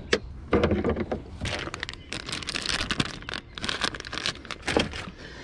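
Plastic soft-bait bag crinkling and crackling as it is handled and opened in both hands, with a sharp click near the start.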